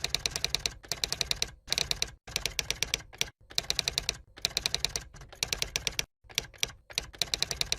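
Rapid typewriter-style key clicks in short runs of about ten clicks a second, each run broken off by a brief dead silence, as in an edited typing sound effect.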